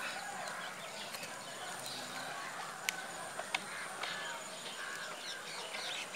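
Birds chirping and calling over a steady outdoor background, with two sharp clicks about halfway through.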